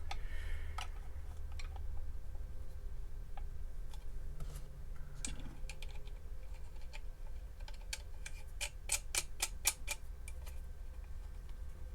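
Sparse light metallic clicks and taps from the Quackenbush .22 rifle's action being handled and worked, then a quick run of sharp clicks near the end; the owner finds the action very loose.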